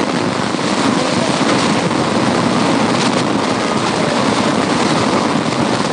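Loud, steady rushing noise with a dense low rumble, cutting off abruptly at the end.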